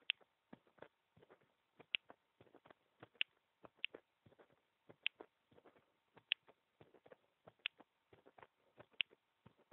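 Heartbeat picked up by a microphone pressed against a bare chest: a faint, uneven run of soft thumps and clicks, with a sharper click about every second or so.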